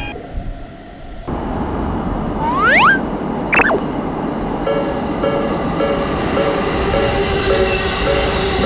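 Train running noise swells in about a second in, with a short rising whistle-like tone near the middle. From about five seconds in, a Japanese railroad crossing alarm starts its rapid alternating two-note ding, about two strikes a second.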